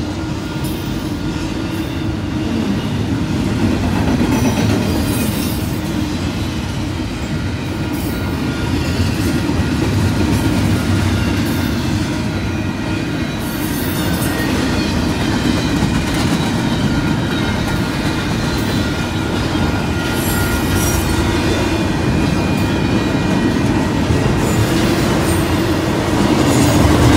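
Double-stack intermodal container cars rolling past at a grade crossing: a steady rumble of steel wheels on rail with light clicking over rail joints. Thin high wheel squeals come and go, and it grows loudest near the end.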